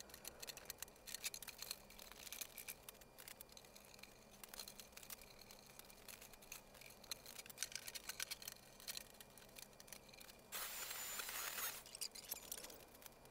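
Faint scattered clicks and taps of metal trunk hardware being handled, then an electric drill running for about a second near the end.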